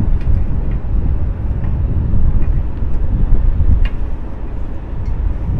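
Wind buffeting the microphone: a loud, uneven low rumble that rises and falls, with a few light clicks from hands handling wiring.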